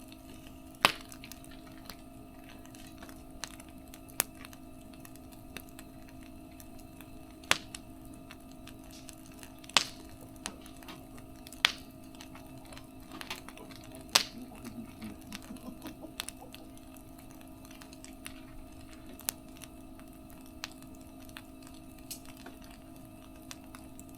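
Wood fire crackling: sharp, irregular pops every few seconds, with a short run of small crackles around the middle, over a faint steady hum.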